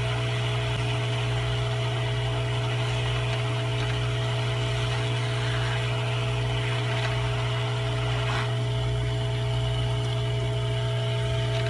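Hot air rework station blowing steadily, a constant low hum with a hiss of air, while it heats a resistor's solder joint on a circuit board.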